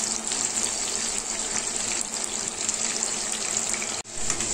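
Soaked chana dal deep-frying in hot oil: a steady, dense sizzle of oil bubbling hard around the wet lentils. It cuts out for a moment about four seconds in, then goes on.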